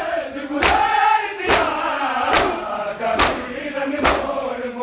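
Men's voices chanting a noha lament in chorus, with bare-hand slaps on bare chests landing together in a steady beat just under one a second (matam).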